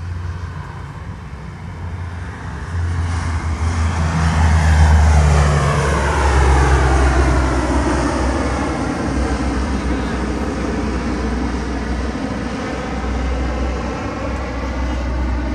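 Large turboprop military transport plane flying low overhead, its engine and propeller drone swelling from about three seconds in to a peak a couple of seconds later and then holding loud. Its sound sweeps down in pitch as it passes over.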